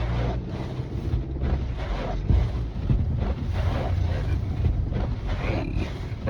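Car driving through snow, heard from inside the cabin: the engine hums steadily under a low rumble of road and tyre noise. The engine hum fades about two seconds in and comes back, with a few small knocks.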